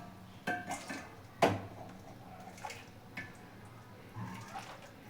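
A few scattered knocks and clinks of a ladle against a cooking pot and serving bowl as kadhi is scooped out, the sharpest about one and a half seconds in.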